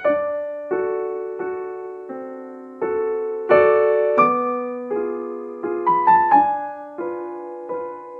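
Background piano music: a slow, gentle run of notes and chords struck about every three-quarters of a second, each fading before the next, with a few quicker notes about six seconds in.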